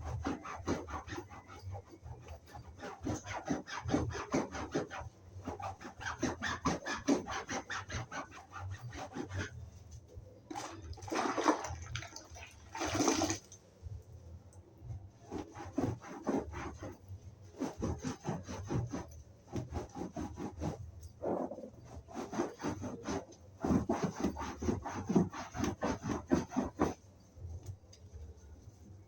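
A wet, soapy sponge scrubbing sofa upholstery by hand in quick back-and-forth rubbing strokes, with a brief louder swish near the middle.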